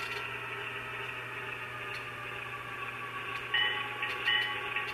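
QSI sound decoder in an Atlas B23-7 model diesel locomotive playing a steady diesel engine sound through its small speaker. About three and a half seconds in, a ringing two-note ding starts repeating about once every 0.7 s.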